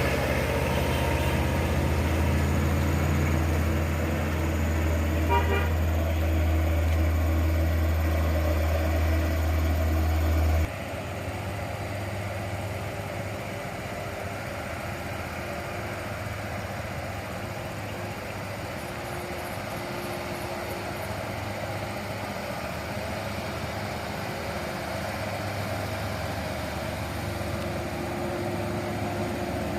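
Hino truck's diesel engine running steadily, then cutting off suddenly about ten seconds in, after which a quieter engine sound carries on.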